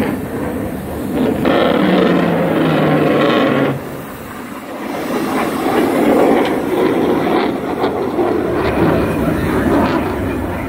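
Distant jet aircraft flying over the sea, a steady rumbling noise with a louder stretch of hiss and a low, slightly falling tone between about one and a half and four seconds in.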